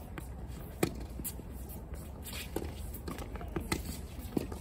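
Tennis ball struck by rackets and bouncing on a hard court: a sharp pop about a second in, a few lighter knocks, and a serve struck near the end, with shoe scuffs on the court and a steady low rumble underneath.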